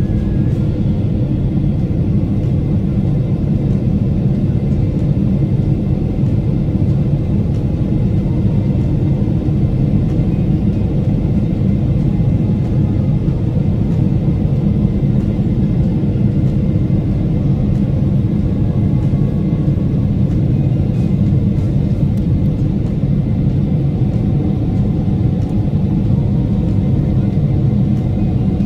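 Jet airliner engines and airflow heard inside the cabin during the climb after takeoff: a loud, steady low rumble.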